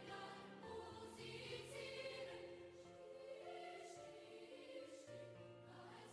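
Quiet background music: a choir singing held notes over slowly changing bass notes.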